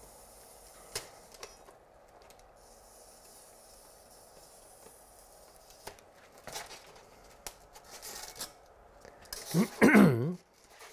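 Faint crackles and light clicks as a block of polystyrene foam is handled and trimmed with a hand-held hot-wire cutter. Near the end there is a short, loud sound with a wavering pitch.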